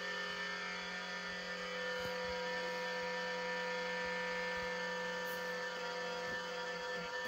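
Levoit LV600HH humidifier running with a very loud, steady whining hum made of several fixed tones, a noise the owner likens to worn-out motor bearings.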